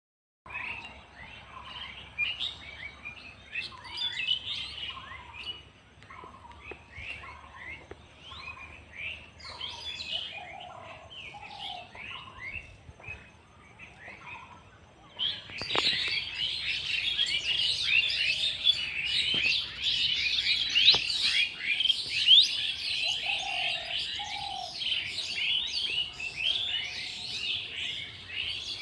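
Many small birds chirping and twittering in a busy chorus, which turns suddenly louder and denser about halfway through, with a few lower paired calls now and then.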